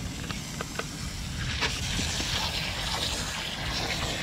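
Water from a garden hose spraying onto fish on a concrete slab, a steady hiss that starts about a second and a half in, after a few light clicks.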